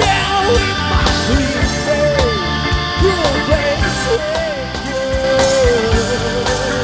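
Rock band playing live with drums and bass under a lead melody line that bends and slides in pitch.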